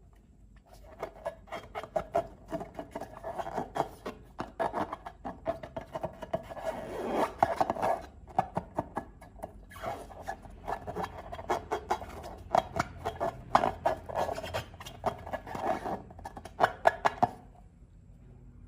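Slime being worked by hand, with dense runs of small sticky clicks and crackles that pause briefly twice.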